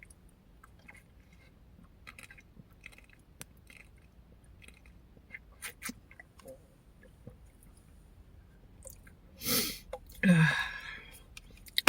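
Faint chewing with small wet mouth clicks, then about two seconds before the end two loud breathy vocal bursts, the second falling in pitch.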